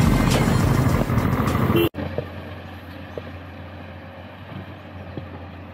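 Loud wind and engine noise of riding on a motorcycle, which cuts off suddenly about two seconds in. It gives way to a much quieter steady low engine hum.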